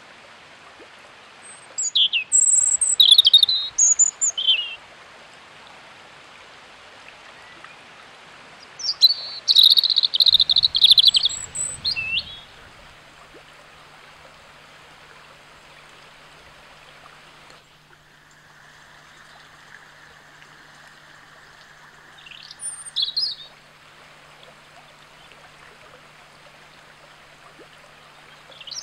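Small songbirds singing in three bursts of varied, high chirping song, the first two a few seconds long and the last brief, over the faint steady rush of a woodland stream.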